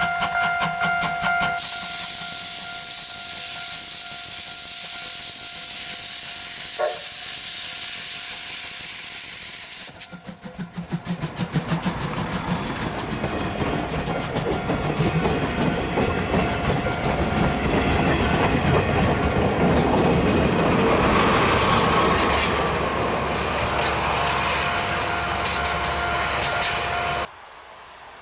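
JNR Class C12 tank locomotive C12 66 starting away with a train: a loud steam hiss from its cylinder drain cocks for about eight seconds, then the locomotive and its coaches rolling past close by with the wheels clacking over the rail joints. The sound cuts off suddenly near the end.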